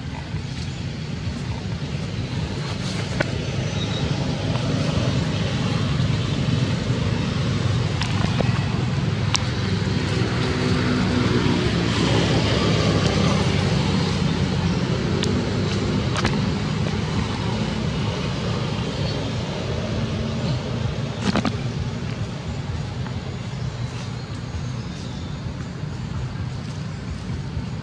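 Steady low rumble of road traffic, with a motor vehicle passing by: its engine note swells and shifts in pitch about halfway through, then fades. A few faint clicks are scattered through it.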